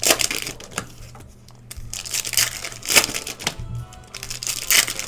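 Trading-card packs and cards being handled: repeated bursts of paper-and-foil rustling and card flicking, about once a second.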